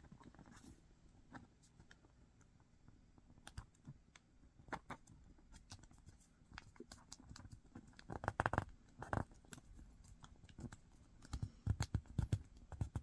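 Sheet of origami paper being folded and creased by hand: faint scattered crinkles and rustles, with denser bursts of handling about eight seconds in and again near the end.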